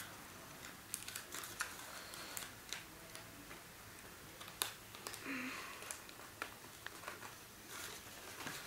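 Faint handling of paper as it is rolled into a tube: scattered small ticks and crinkles, with one sharper click about four and a half seconds in.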